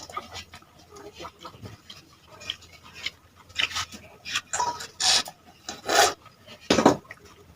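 Irregular scraping and rubbing against dishes, with about five louder strokes in the second half.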